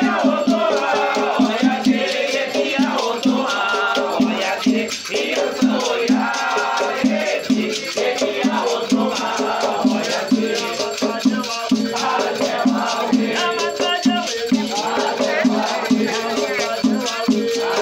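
Batuque ceremony music: voices singing over a steady drum beat of about two to three strokes a second, with a shaker-like rattle running through it.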